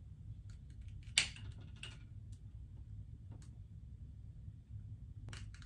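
Long-nosed utility lighter clicking as it is fired to light a jar candle: a few sharp clicks, the loudest about a second in, over a low steady hum.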